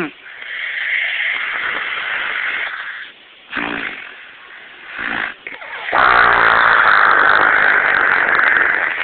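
Elderly woman snoring in her sleep: a long noisy breath, two short snorts, then a longer, louder snore from about six seconds in.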